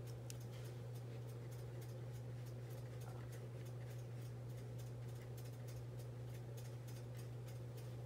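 A steady low hum with a fast, uneven run of faint ticks over it, several a second.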